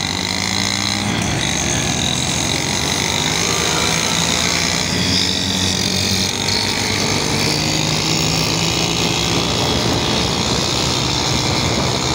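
Two-stroke auto-rickshaw engines running hard at speed in a race, a steady loud buzz mixed with rushing wind and road noise.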